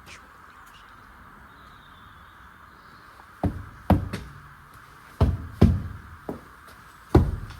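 Boot kicks against heavy lorry tyres: about six dull, loud thuds, mostly in pairs, starting a few seconds in, a check of the tyre pressure by how the tyre bounces back.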